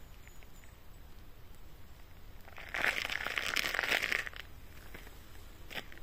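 A crackling rustle, loud for about a second and a half from about halfway in, made of many fine crackles, then a single short click near the end.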